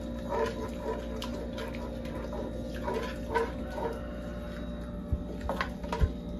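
Thick chipotle salsa simmering in a clay cazuela, its bubbles popping now and then, with two sharp knocks near the end.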